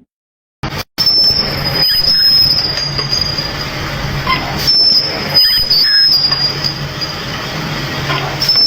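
Metal lathe cutting metal, with a loud, steady, high-pitched squeal over a low machine hum. It starts about half a second in, after a short break.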